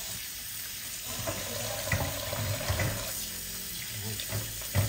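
Tap water running into a sink while partly frozen chicken is rinsed under it, with a few dull knocks from the pieces being handled, about two seconds in and again near the end.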